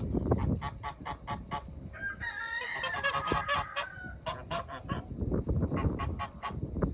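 A goose honking over and over in quick short calls, with one longer drawn-out call in the middle.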